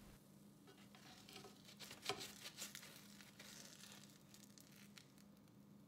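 Faint, scattered crackling from a veggie burger frying in ghee in a cast iron skillet, over a steady low hum.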